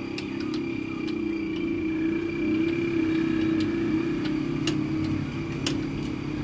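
An engine running steadily at constant speed, a continuous hum with a thin whine above it. Scattered sharp metallic clicks and clinks from work on the truck's wheel hub come over it, a couple of the clearest ones near the end.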